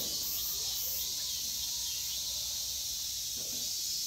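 Steady high-pitched insect chirring, with a few faint distant voices underneath.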